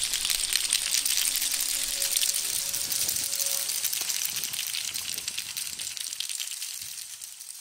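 Many yosakoi naruko clappers rattling together as a dense clatter of small wooden clicks, fading out over the last few seconds.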